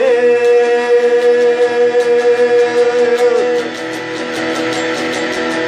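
Guitar-band instrumental break: guitars playing, with a long held note that drops away about three and a half seconds in, then lighter strumming.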